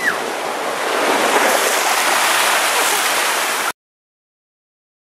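Rough typhoon surf breaking and churning along the shore, a dense rushing noise with wind, growing louder about a second in. The sound cuts off abruptly about three and a half seconds in.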